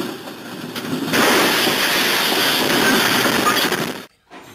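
Lego toy train running along plastic track: a steady, noisy rumble that gets louder about a second in and cuts off abruptly near the end.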